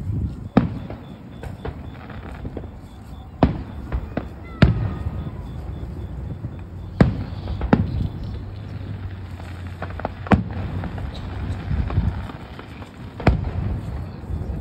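Aerial firework shells bursting: about seven sharp bangs at irregular intervals, with a low rumble between them.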